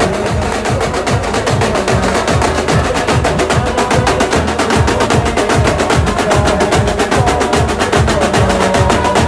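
Jhankar street band drumming: a fast, dense run of drum strikes over deep bass-drum strokes about three a second, with a pitched melody line running over the beat.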